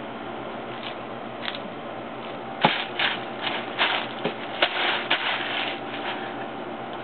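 Hard taco shells crunching and crackling as they are bitten and chewed, a quick run of sharp crunches about a third of the way in, the loudest first.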